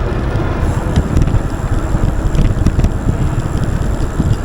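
Wind buffeting the microphone while riding an Aventon Level 2 e-bike, with a few sharp, irregular clicks from the drivetrain. The click is a new, intermittent noise felt through the pedals, which the rider suspects comes from the crank.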